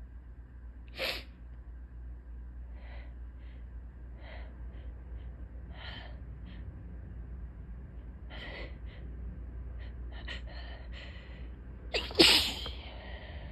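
A woman's allergy sneeze building up: a short sharp burst about a second in, a run of hitching, gasping breaths, then one loud, full sneeze near the end.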